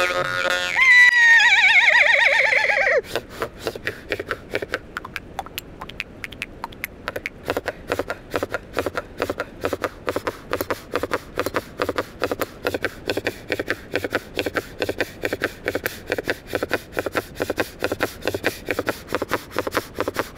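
Khomus (Sakha jaw harp) played with a loud, wavering, falling whinny-like glide for the first few seconds. After that comes a quieter, fast, even run of plucked strokes, like galloping hooves.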